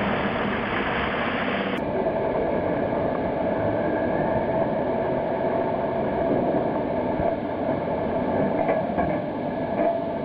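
Steady mechanical running noise of a container crane at work, with a steady hum under it, as its spreader and headblock hang over a container. The noise changes abruptly about two seconds in, and a few faint metallic clicks come near the end.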